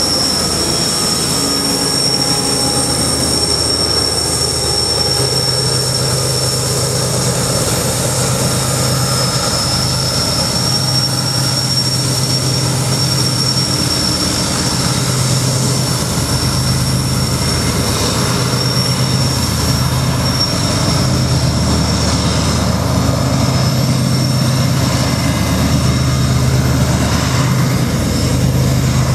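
Diesel-electric freight locomotives working hard under load, with a deep, uneven engine throb. A steady high-pitched squeal comes from the wheel flanges grinding through the tight curve, over the rumble of the train rolling past.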